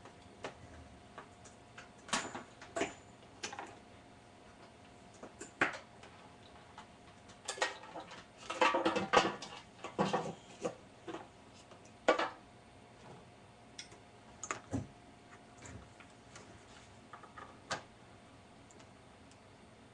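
Scattered clicks, knocks and rattles of hands handling a portable reel-to-reel tape recorder and unplugging and plugging in its leads, busiest about eight to ten seconds in, over a faint steady tone.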